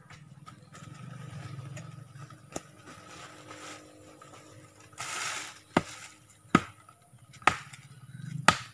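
A tool chopping into the soil and roots at the base of a small tree as it is dug up: one knock about two and a half seconds in, a brief scraping rustle, then four sharp blows about a second apart near the end.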